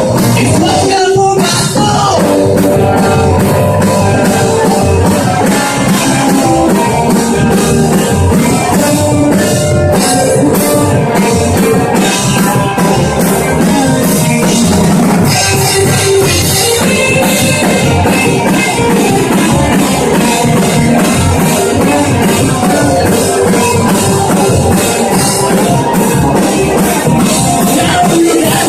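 Live rock band playing, drum kit and guitars with a steady driving beat, loud and continuous.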